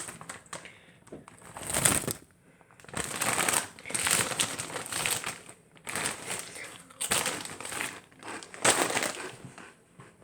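Plastic crisp packet of Meanies crinkling in irregular bursts as it is opened and handled.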